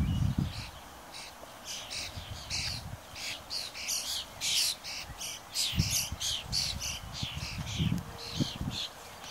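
A bird calling in a quick series of short, harsh, high notes, about two or three a second, with a few low puffs of breath from cows close by at the start and again later.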